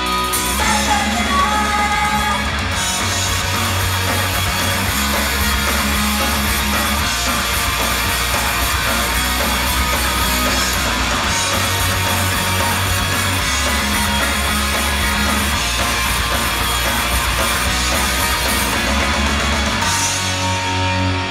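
Loud heavy rock song played at an idol group's live show, with distorted electric guitar, drums and a bass line that changes note every few seconds.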